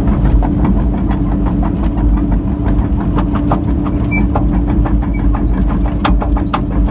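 Kobelco excavator's diesel engine running steadily, heard from inside the cab, with many irregular sharp clicks and ticks over the hum.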